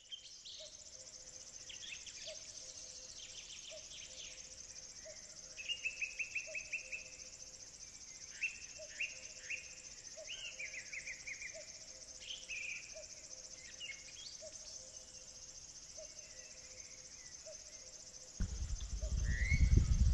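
Rural outdoor ambience: a steady high drone of insects with various birds calling and trilling, and a low short note repeating about once a second. Near the end a louder low rumble comes in.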